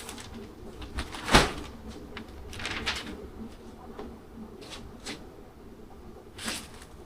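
Irregular rustling and handling noises as packaging and parts are moved about, with the loudest rustle about a second and a half in.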